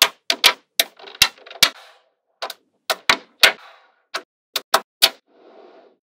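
Small magnetic balls clicking sharply as they snap onto a magnetic-ball model, about a dozen irregular clicks, some in quick pairs. A soft rustle of balls shifting comes near the end.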